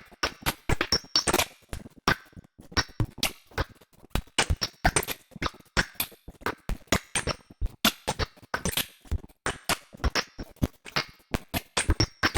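Glitchy electronic percussion made from granulated noise: a stuttering run of short, sharp clicks and hits at an irregular, rapid rhythm, some with brief high metallic pings, shifting as the granulizer's parameters are changed.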